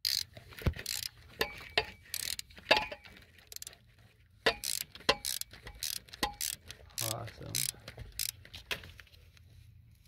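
Socket ratchet clicking in short, irregular strokes on a long extension, backing out the top mounting bolt of a 12-valve Cummins starter.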